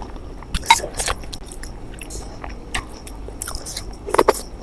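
Close-miked eating: a person biting and chewing food, with wet clicks and crackles from the mouth at irregular intervals and a louder cluster of them near the end.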